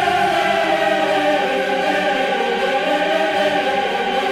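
Background music: a choir singing long held chords.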